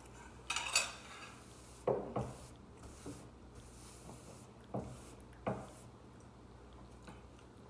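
A few short, separate knocks and scrapes of a plate and cutlery being moved on a tabletop, with a paper napkin rubbed across the table.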